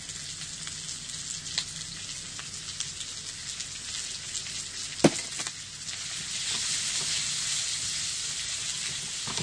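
Pork shoulder pieces frying in hot chili oil in a wok, sizzling steadily, with the sizzle growing louder about six seconds in as the meat is stirred with a spatula. A single sharp knock against the pan about five seconds in.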